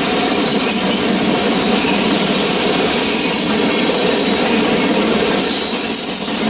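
Train cars rolling past in a steady rumble, with high wheel squeal coming and going and strongest near the end.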